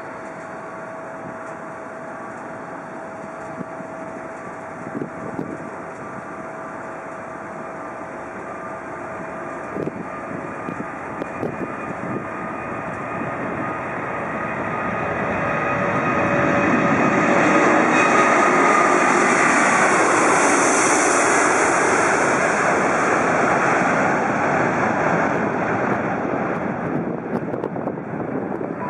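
Airbus A380-841's four Rolls-Royce Trent 970 turbofans at takeoff thrust, growing steadily louder as the jet rolls and lifts off. The sound peaks about two-thirds of the way through, where a whine drops in pitch as it passes, then eases as it climbs away.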